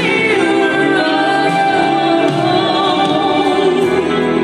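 Music with a woman singing, holding long notes over the accompaniment.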